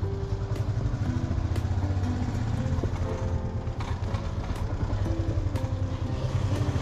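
Motorbike riding noise, a steady low rumble, under background music with a regular beat and a changing melody.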